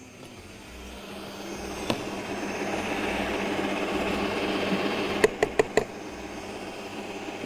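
Kenwood MultiOne 1000 W stand mixer running, its beater creaming butter, sugar and eggs in a steel bowl; the motor noise builds over the first couple of seconds. About five and a half seconds in come four sharp knocks close together, after which the mixer runs quieter.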